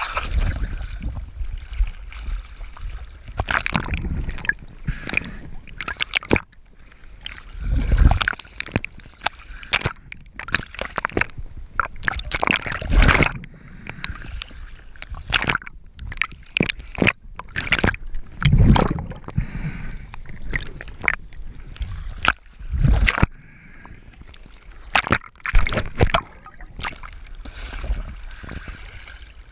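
Water splashing and sloshing close to the camera, with irregular thumps and crackles.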